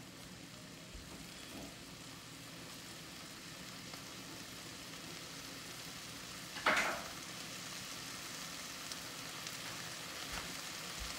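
Shaved beef and melted cheese sizzling softly on an electric griddle turned down to warm: a low, steady frying hiss, with one short louder burst about two-thirds of the way through.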